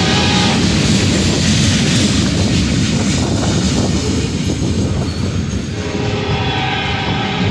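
Freight cars rolling past, their steel wheels clattering steadily over the rails. A multi-chime locomotive horn, the lead unit's Nathan K5LLA, sounds ahead of the train, stops just after the start and sounds again over the last second and a half.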